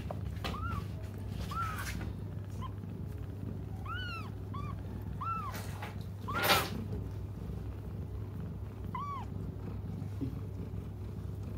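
Newborn kittens mewing: short, thin, high cries that rise and fall in pitch, about a dozen scattered through. A brief louder noisy burst comes about halfway through.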